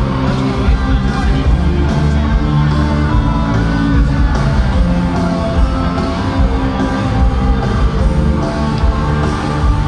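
Live rock music played loud over a stadium sound system, with a heavy bass low end.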